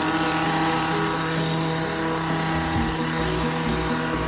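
Gas string trimmer (weed eater) engine running steadily at a high, unchanging speed.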